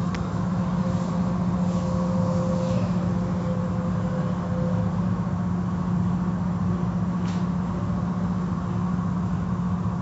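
Automatic car wash running over the car, heard through the car's glass: a steady low machinery hum under the hiss of water and soap sheeting over the windows, with a faint tone fading out about halfway through and a couple of brief swishes.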